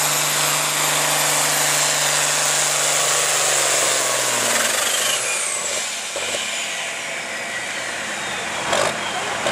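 International Harvester pulling tractor's diesel engine running steady and hard under full pull load, with a high whine over it. About halfway through the engine is throttled back as the pull ends, and the whine glides slowly down as it winds off; a short sharp knock comes near the end.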